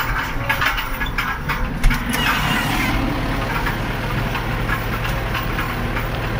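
New Holland TD110 tractor's diesel engine running steadily while pulling a cultivator across a worked field, heard from inside the cab. Light rattling through the first couple of seconds, with a single sharp knock just before two seconds in.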